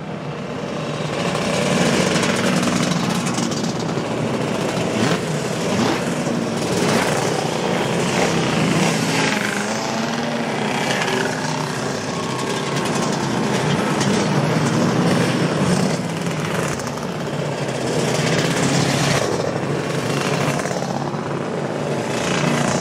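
Engines of several classic racing motorcycles revving as the bikes ride out one after another, with repeated surges as each one passes.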